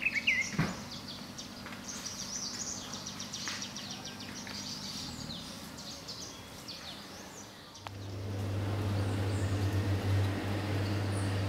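Outdoor ambience with scattered faint bird chirps and a short gliding bird call at the start. About eight seconds in, the sound changes abruptly to a steady low hum.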